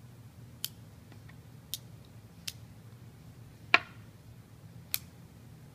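Small metal pen parts clicking together by hand: five sharp, separate clicks about a second apart. The fourth is the loudest and rings briefly.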